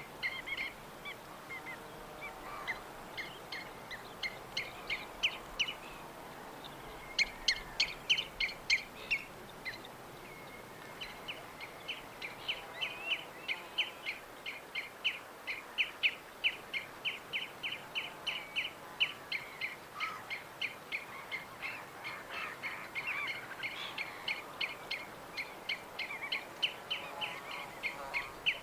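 Songbirds chirping: a string of short, high chirps, then from about eleven seconds in a fast, steady run of repeated chirps several times a second, over a faint background hiss.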